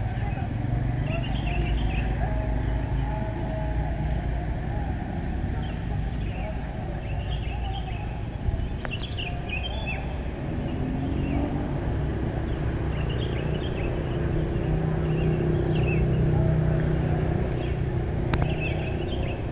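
Small birds chirping in short, repeated calls over a steady low rumble of road traffic, which swells a little toward the end. Two sharp clicks, one about halfway and one near the end.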